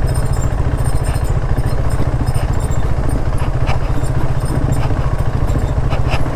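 Motorcycle engine running steadily at low speed on a rough dirt track, with a fast, even low pulse, and a few sharp knocks and rattles from the bike going over the rough ground.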